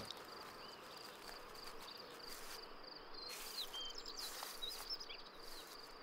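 Faint insect ambience: a steady, high, finely pulsing trill, with a few short high chirps scattered through the middle.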